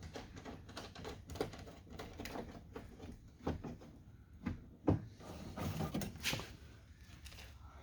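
Scattered small clicks, knocks and rattles of hands working parts inside a pickup truck's door while fitting a replacement door handle and threading its nuts on by hand. One sharper knock comes about five seconds in.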